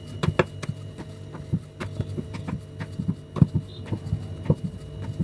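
Wooden rolling pin rolling out a stuffed aloo paratha on a wooden chakla board, giving irregular light knocks and clacks several times a second as pin and board shift, over a steady low hum.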